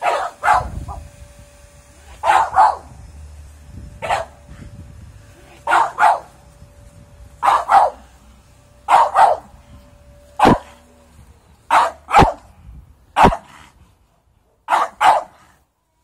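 Dog barking in short, loud barks, mostly in quick pairs, about every one and a half seconds, at a strange object on the lawn it is wary of.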